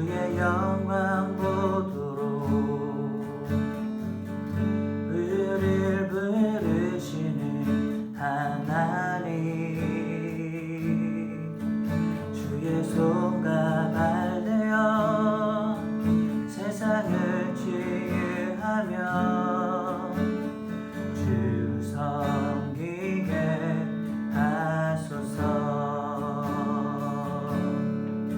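Strummed acoustic guitar accompanying a slow worship song, with a sung melody line wavering in vibrato over the chords.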